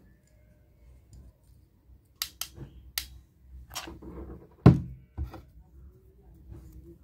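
Handling noises from small parts being worked by hand: a few sharp clicks about two to three seconds in, then a loud thump and a softer knock.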